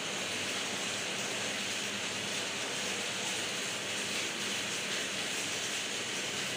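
Large-format outdoor digital printer running, its print-head carriage shuttling back and forth across the banner: a steady machine noise with no breaks.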